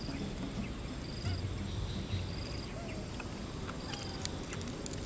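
Outdoor ambience: a short, high-pitched trilled chirp repeats about every second and a quarter over a steady background hiss, with a few faint lower calls from animals.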